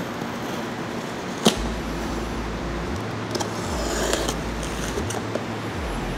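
A box cutter slitting packing tape on a cardboard box: a sharp click about one and a half seconds in, then scratchy slicing and rustling of tape and cardboard, over a steady low hum.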